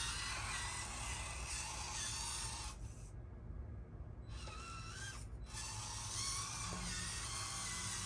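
Small RC crawler truck's electric motor and gear drivetrain whining and grinding as it drives, cutting out briefly about three seconds in before picking up again.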